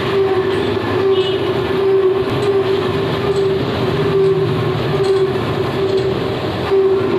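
Lathe running: a steady mechanical running sound with one steady tone that keeps swelling and fading.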